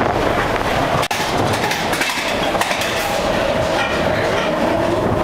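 Matterhorn Bobsleds sled running along its tubular steel track, a loud, steady rolling noise of the wheels on the rails, with a brief drop in level about a second in.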